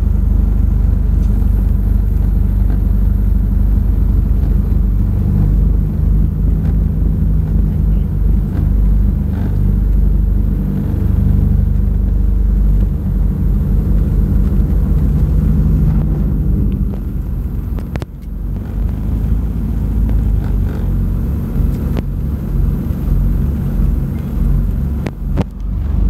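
Twin piston engines and propellers of a Britten-Norman BN-2B-26 Islander (Lycoming O-540s) running at taxi power, a steady low drone heard inside the cabin. The engine sound eases off about two-thirds of the way through, with a couple of sharp clicks.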